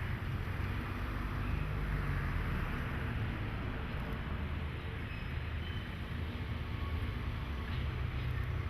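JNR DE10 diesel-hydraulic locomotive running with a steady low rumble.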